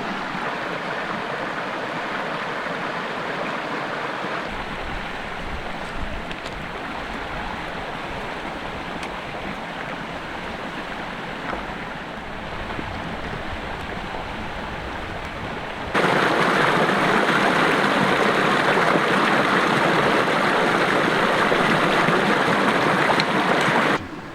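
Creek water rushing steadily over rocks, heard as several edited shots: it turns much louder about two-thirds of the way through and drops back suddenly near the end.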